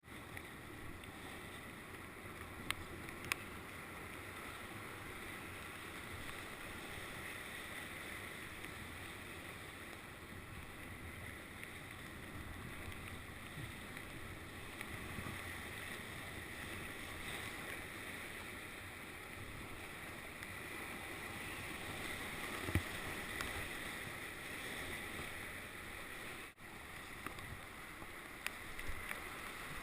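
Steady rush of river whitewater heard from a canoe in the canyon's current, with a few short sharp knocks along the way.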